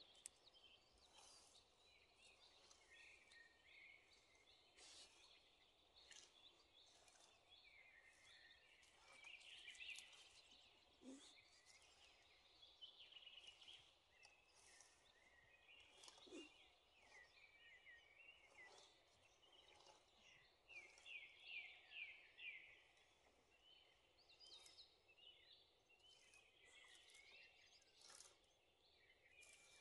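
Faint outdoor ambience with small songbirds chirping and singing in short phrases throughout, and a quick run of repeated notes about two-thirds of the way through.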